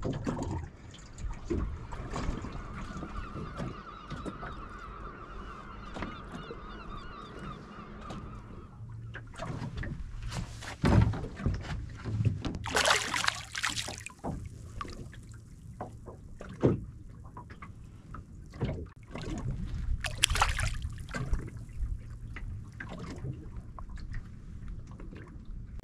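Water splashing and sloshing against the side of a small boat as a hooked fish is held at the surface, with a few knocks on the hull and two loud splashes. A wavering, honking tone runs through the first several seconds.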